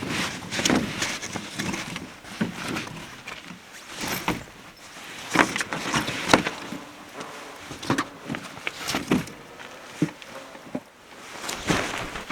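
Irregular rustling with scattered sharp knocks and clicks, a few seconds apart.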